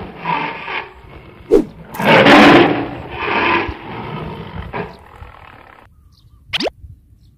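A tiger roaring: a series of rough roars, the loudest about two seconds in, then weaker ones fading out by about six seconds.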